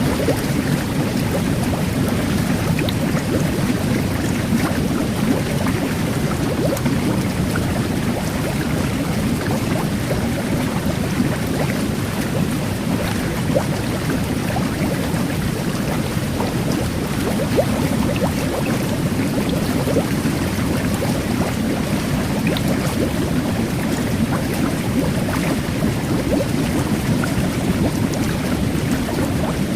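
Jet bath (whirlpool tub) water churning steadily, with the fine crackle of carbonated-water microbubbles fizzing over it.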